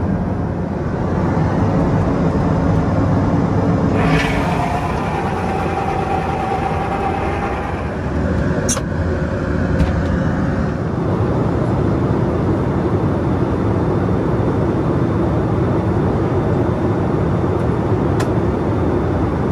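Steady in-flight cabin noise of a Boeing 757-200 airliner at cruise: an even deep rumble with hiss. About four seconds in, a louder rushing sound with a faint tone in it starts and dies away over several seconds. A few sharp clicks follow.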